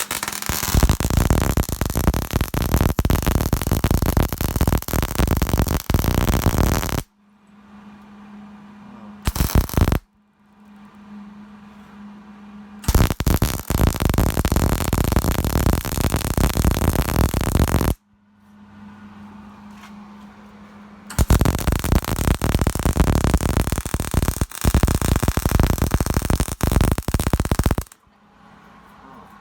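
Wire-feed MIG welder laying beads: four runs of harsh, steady crackling that start and stop abruptly, the first and last about seven seconds long, a second one of about half a second, and a third of about five seconds. A low steady hum from the welder fills the pauses between runs.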